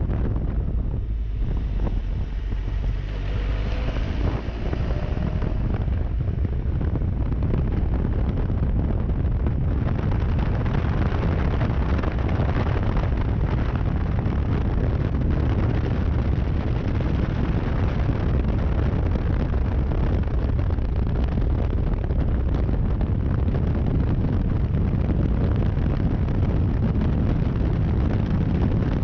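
Wind rushing over the microphone of a Triumph Tiger 1200 motorcycle at road speed, with its three-cylinder engine running underneath. The engine note rises and falls briefly a few seconds in.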